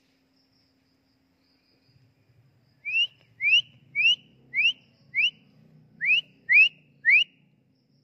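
A person whistling eight short, rising notes up at a drongo sitting on its nest, to make the bird raise its head: five notes evenly spaced, a short pause, then three more.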